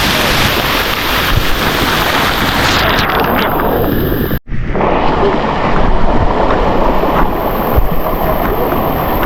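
Waterfall cascade rushing, a loud, steady wash of falling and flowing water, with a brief dropout about four and a half seconds in.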